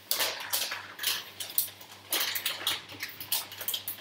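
Hot oil crackling and spitting in a frying pan around popcorn kernels, in irregular short bursts several times a second, over a faint steady low hum.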